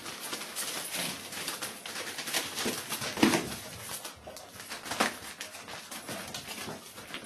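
Whippet puppies scrambling and play-wrestling on newspaper: irregular rustling and crinkling of paper under their paws, with small puppy grunts, the loudest a little over three seconds in.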